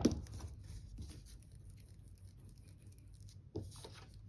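Hands working a small lump of air-dry clay on a tabletop: faint rubbing and rustling, with a soft knock right at the start and another about three and a half seconds in.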